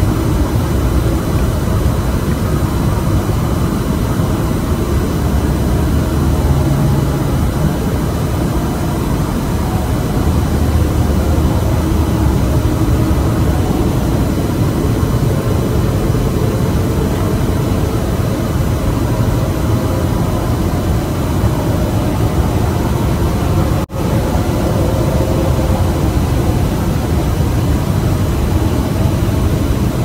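A loud, steady low rumble with droning tones, recorded on a phone at night; the recorder takes it for strange noise coming from the sky. It cuts out for an instant about 24 seconds in.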